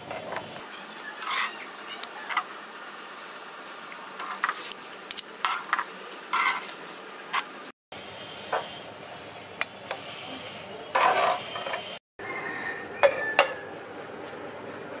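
Scattered clinks and taps of ceramic plates and utensils being handled, over a steady background hiss; the sound drops out briefly twice.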